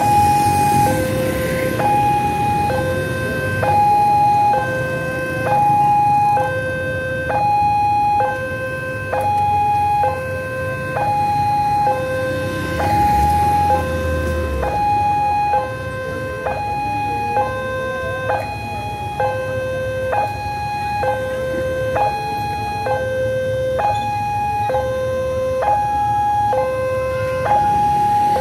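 Level-crossing warning alarm sounding its two-tone high-low chime, about one pair a second, which signals that the barriers are closing for an approaching train. A low traffic rumble runs underneath.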